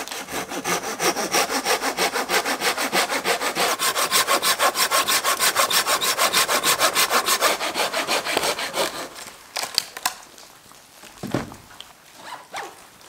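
Silky Gomboy folding saw cutting through a dead branch for firewood with quick, even strokes. The sawing stops about nine seconds in, followed by a few scattered knocks.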